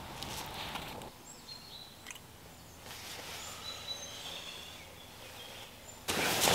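Faint birdsong of thin, high whistled notes. Near the end comes a short, louder burst of rustling as the hammock and bedding are moved.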